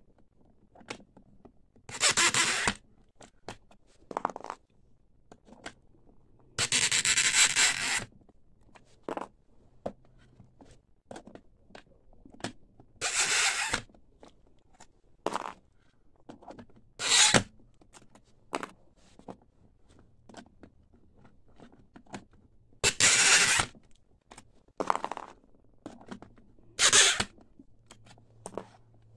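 Ceramic skateboard bearings being levered out of urethane wheels on a bench-mounted bearing puller: about ten short scraping rasps, the longest a little over a second, with sharp clicks and knocks of metal parts between them.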